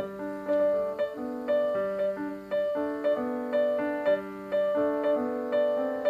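Background piano music: single notes played in an even pattern, about two a second, each fading after it is struck.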